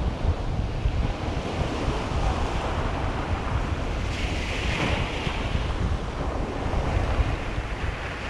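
Wind buffeting the microphone over surf washing on the shore, with a brief louder hiss a little past the middle.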